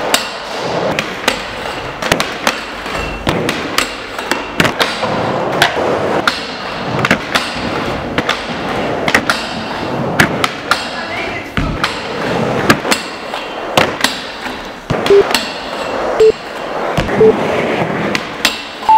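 Skateboard tries on a metal rail: sharp clacks of the board popping, hitting the rail and slapping down come about once a second over the rumble of wheels rolling.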